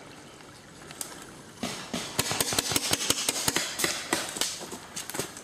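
Paintball markers firing a rapid string of sharp pops, several a second, starting about a second and a half in.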